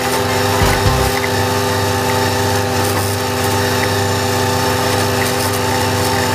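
Valtra A93 tractor's diesel engine running steadily under load while driving an Agrimaster KP2600 flail mower through the PTO. The engine's drone and the spinning flail rotor make a constant, even mechanical sound.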